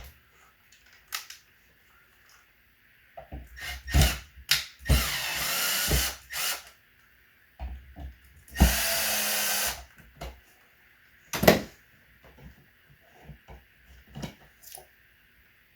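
Power drill/driver run in two short bursts of about a second each, the first speeding up as it starts, with clicks and knocks of handling around them.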